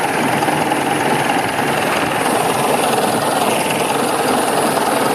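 A Fortschritt ZT tractor's diesel engine running steadily at an even speed, with no revving or changes.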